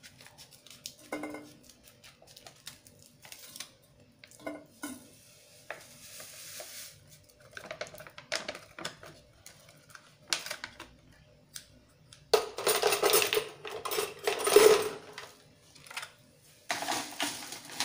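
A plastic sachet of pudding powder snipped with scissors and shaken out into an aluminium saucepan, the packet rustling and knocking against the pot. The clatter is loudest about two-thirds of the way through, as the last of the powder is shaken and scraped out.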